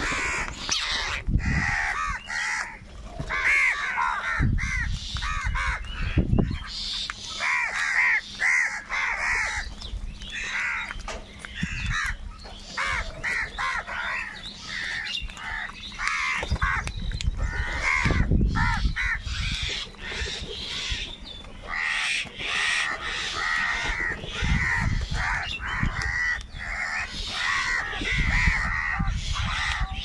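A flock of house crows cawing constantly, many harsh calls overlapping as they crowd around food. A few low rumbles come and go underneath.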